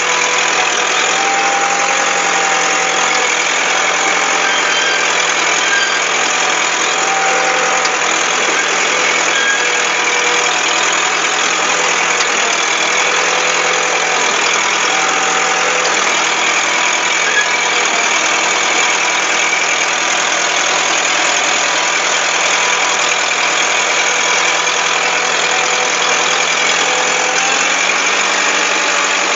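Komatsu D30A crawler bulldozer's diesel engine running steadily, with the machine being driven and steered.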